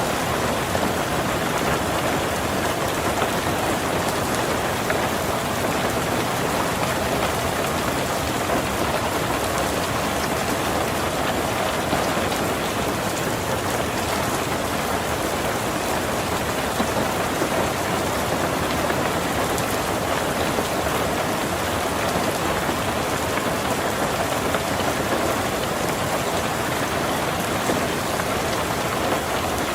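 Heavy rain falling steadily on a tin roof: a dense, even patter with no breaks or thunder.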